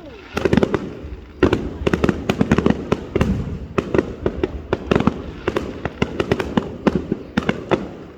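Aerial fireworks bursting in rapid clusters of sharp bangs and crackles, with short lulls between volleys.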